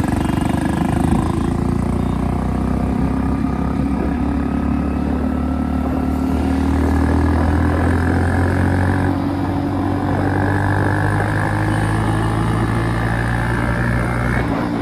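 Modified Hero Splendor's single-cylinder engine running loud through an aftermarket RX-style silencer while under way, its note rising slowly and steadily as the bike gathers speed.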